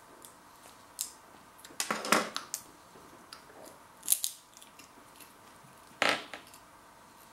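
Onion-flavoured multigrain pop crackers being bitten and chewed, making crisp, dry crunches in four short clusters: about a second in, around two seconds, just after four seconds, and at six seconds.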